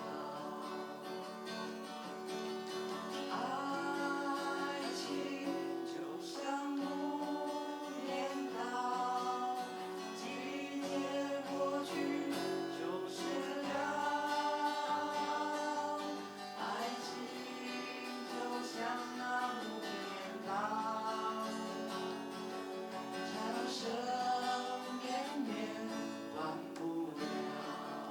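Live music: a strummed acoustic guitar with a singing voice carrying a melody over it.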